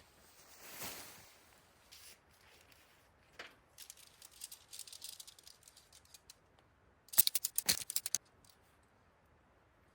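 Camping gear being handled while setting up camp: a soft swish, scattered light clicks, then about a second of rapid rattling clicks about seven seconds in.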